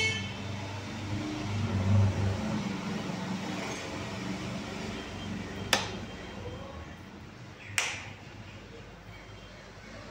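Two sharp clicks of a light switch about two seconds apart, turning a ceiling panel's LED backlight on and then off, over a steady low hum.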